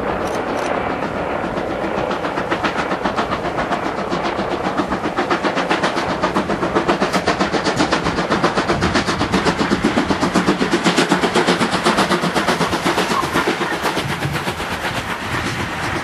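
Steam locomotive at speed hauling passenger coaches, its exhaust beating in a fast, even rhythm that grows louder as it draws near and passes, then eases as the coaches roll by with clattering wheels.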